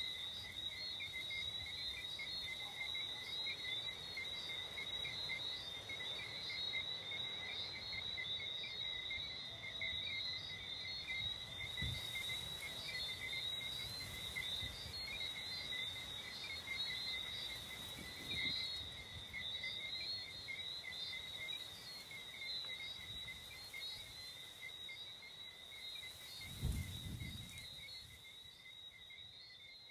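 Steady outdoor chorus of small calling creatures: an even, rapidly pulsing trill at two pitches, one high and one higher. A low thump comes near the end.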